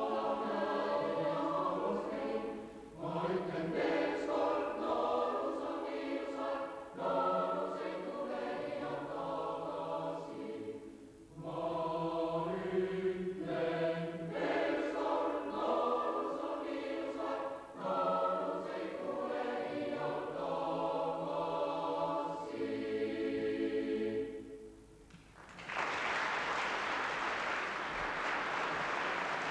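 Boys' and young men's choir singing a German folk song a cappella in phrases separated by short breaths. The song ends about 25 seconds in and, after a brief pause, the audience applauds.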